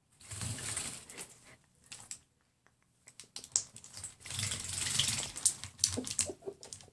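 Yellow-sided green-cheeked conure bathing, splashing water with rapid wing flapping in two bouts: one in the first second, and a longer one from about four to five and a half seconds in. Between and after the bouts there are scattered sharp splashes and drips.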